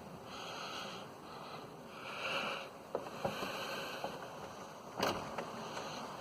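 Rain falling during a thunderstorm, a steady hiss that swells and eases in waves, with a few sharp taps about three seconds in and a louder one about five seconds in.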